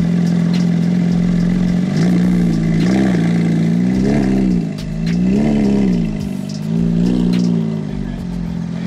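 Porsche 911 GT3's naturally aspirated flat-six idling steadily, then a handful of short rev rises and falls as the car pulls away at low speed.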